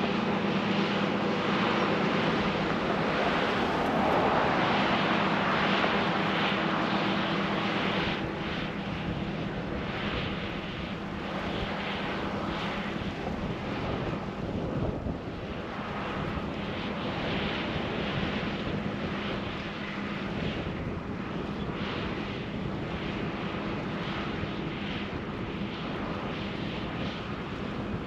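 Multirotor drone's propellers running with a steady buzzing hum, a little louder for the first several seconds.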